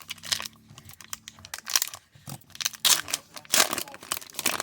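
Hockey trading cards being handled and slid through by hand out of an opened pack, with irregular crinkling and swishing of card stock and wrapper.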